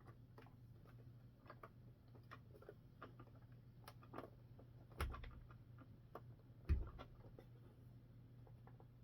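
Irregular light clicks and taps of small parts of a toy M1A2 Abrams tank being handled and fitted together, with two louder knocks about five seconds in and just before seven seconds. A faint steady hum runs underneath.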